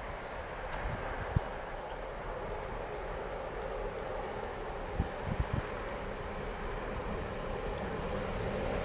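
Insects chirping in the grass, a high-pitched call pulsing at an even pace, with the low rumble of an approaching diesel freight train building near the end.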